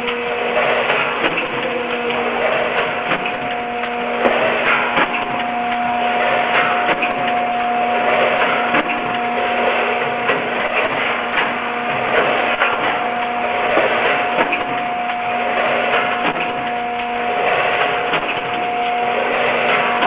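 SPAN vertical form-fill-seal packaging machine with its weigher, running: an uneven mechanical clatter over a steady hum of several tones.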